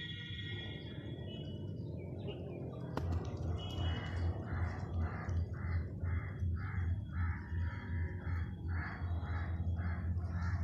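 A bird calling in a rapid, even series of short harsh calls, about two a second, starting about four seconds in, over a low rumble; high chirping birdsong is heard in the first second or so.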